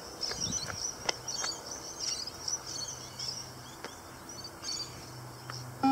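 Outdoor background of birds and insects chirping over a steady low hum, with a few scattered light knocks. Right at the end a loud beep-test beep sounds.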